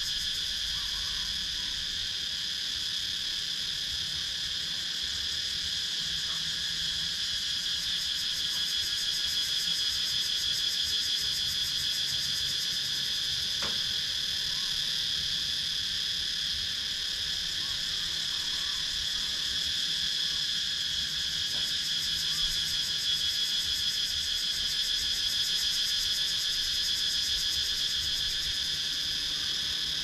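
Cicadas calling in a steady, unbroken chorus: a high, continuous buzz with a fast pulse, swelling slightly a couple of times.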